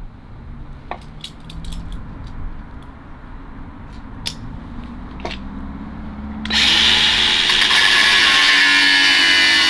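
A few light clicks of tools and bolts being handled. Then, about six and a half seconds in, a cordless angle grinder starts cutting, loud and harsh, as it cuts a porthole bolt held in locking pliers back to length.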